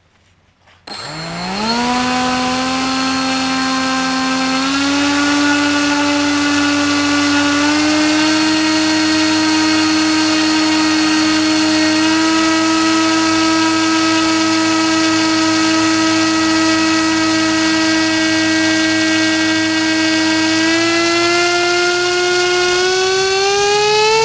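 RC airboat's motor and air propeller starting about a second in with a quick rise in pitch, then running as a loud steady whine that steps up in pitch several times and climbs again near the end.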